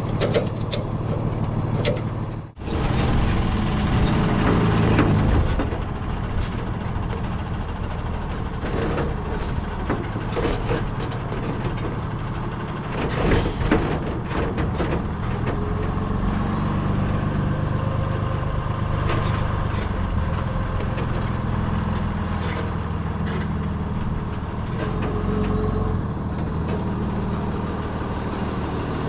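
A few sharp clicks of a ratchet strap being tightened, then after a cut a flatbed tow truck's engine running steadily as it drives, with a brief louder burst of noise about halfway through.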